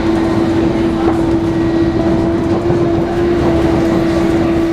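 London tube train running, a steady whine held over rumbling wheel and track noise.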